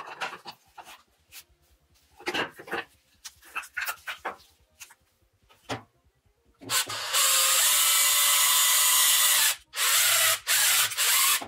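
Cordless drill with a step drill bit boring into a black plastic part. Light handling clicks and rubbing at first, then a little over halfway the drill runs steadily for about three seconds, followed by a few short bursts.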